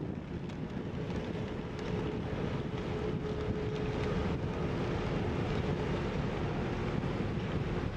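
Diesel engine of the lake freighter Herbert C. Jackson running as the ship passes close by: a steady low rumble with a faint steady hum in the first half. Strong wind buffets the microphone over it.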